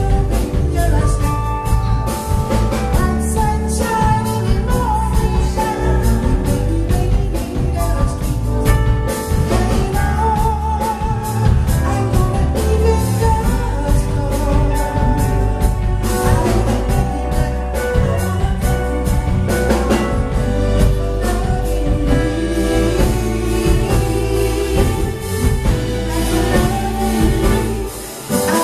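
Live soul-blues band playing: a lead vocal with backing singers over drum kit, keyboard and electric guitar, with a steady beat.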